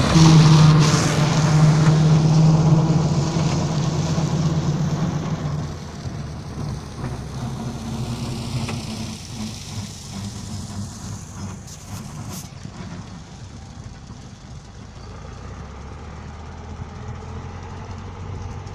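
Diesel engine of a John Deere 720 tractor running steadily under load as it pulls a no-till Happy Seeder through straw stubble. Its hum is loud at first and drops off after about six seconds as it moves away, staying fainter to the end.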